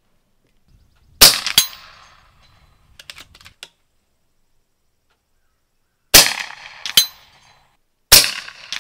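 FX Panthera PCP air rifle firing: three sharp reports, about a second in, about six seconds in and about eight seconds in, each followed within a second by a second sharp crack. A few light mechanical clicks come around three seconds in.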